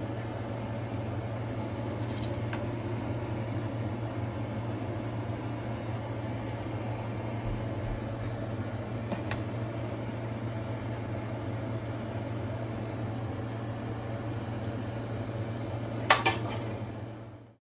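Pasta served from a pot onto a ceramic plate with a serving utensil: a few sharp clinks of metal against the pot and plate, the loudest pair near the end, over a steady low hum. The sound cuts off shortly before the end.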